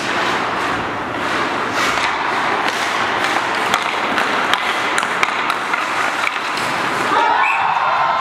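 Hockey rink sound: sharp taps of a stick on the puck and skates scraping the ice, under indistinct voices from the benches. About seven seconds in, players start shouting and cheering.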